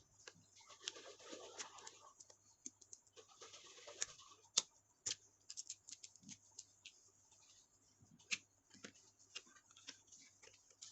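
Hands working open a cardboard product box: faint scattered taps, clicks and soft scraping of the packaging.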